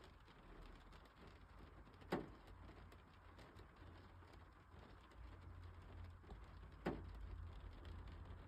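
Rain on a glass window pane, faint: a soft patter with two sharp taps of drops striking the glass, about two seconds in and again about seven seconds in, over a low steady rumble.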